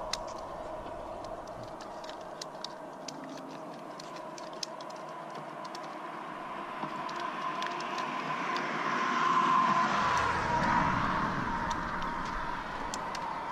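Road-bridge traffic: a steady hum, with a vehicle passing that rises to its loudest about ten seconds in and then fades, over scattered light ticks.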